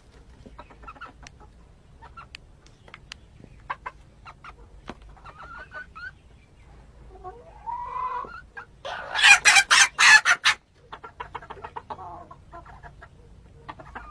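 Chickens clucking and calling as a rooster scuffles with a hen, with scattered short calls and scratchy clicks. About nine seconds in comes a loud, rapid flurry of about seven sharp noises.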